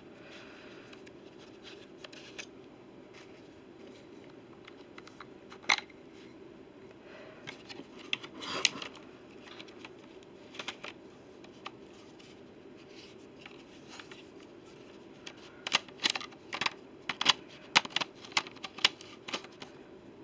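Clicks and taps from handling a Canon EOS 4000D DSLR while trying to fit a part into it: a few scattered clicks, then a quick run of clicks in the last few seconds.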